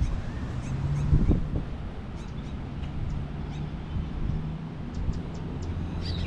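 Outdoor park ambience: wind rumbling on the microphone under a steady low hum, with short, high bird chirps scattered throughout.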